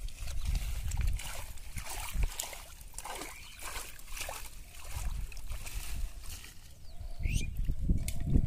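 Hands splashing and sloshing in shallow water among water hyacinth, in uneven bursts, with wet plants rustling.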